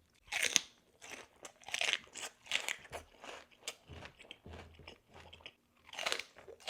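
Close-up mouth sounds of someone eating jalapeño Takis rolled tortilla chips: a string of separate crunches and chewing, loudest about half a second in and again about six seconds in.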